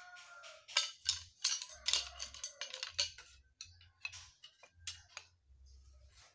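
Thin wooden slats clicking and knocking against each other and the concrete floor as they are handled and fitted together: a quick, irregular run of light wooden knocks that thins out near the end.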